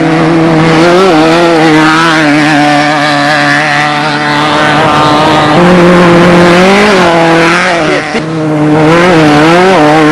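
Off-road desert race vehicle's engine running hard at high revs, its pitch wavering with the throttle. The revs climb about halfway through, drop briefly near the end, then pick up again.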